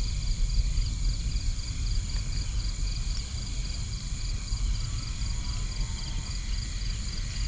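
Night insects chirping in a steady, rapid high-pitched pulsing trill over a steady low rumble.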